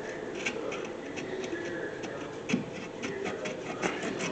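Light metal clicks and scrapes as a rusty rear brake caliper is worked off its mounting bracket, with a sharper knock about two and a half seconds in.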